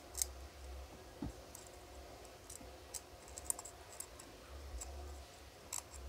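Faint, scattered clicks and light scratches of metal tweezers working at a phone's circuit board around the micro-USB charging port, over a faint low hum.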